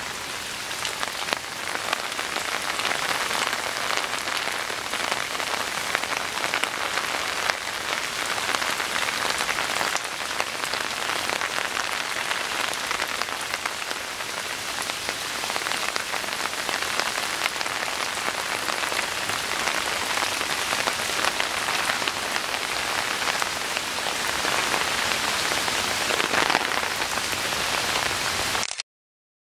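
Steady rain from a rainstorm falling on a flooded garden, drops splashing into standing water and on leaves. The sound cuts out briefly near the end.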